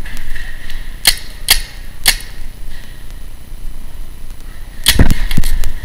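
Paintball marker shots: three sharp pops about half a second apart a second in, then a louder cluster of pops and heavy thuds near the end.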